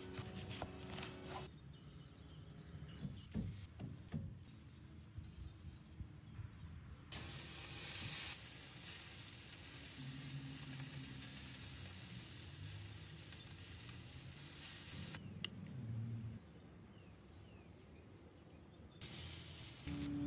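Burger patties sizzling on a hot grill grate, a steady hiss that starts about seven seconds in, drops out near the end and returns. Before it, a knife cuts through a red onion on a wooden cutting board.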